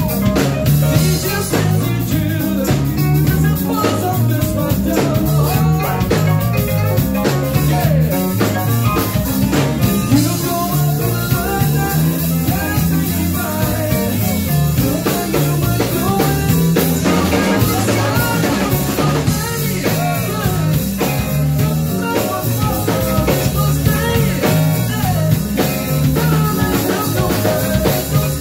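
Live band playing a song: drum kit, electric guitar and keyboard, with a lead singer.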